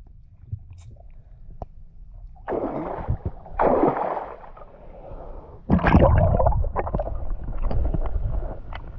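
Water splashing and sloshing around a swimmer as he goes under, with gurgling bubbles. About two thirds of the way in the sound turns to a louder, muffled low rumble with many small clicks, as heard from underwater.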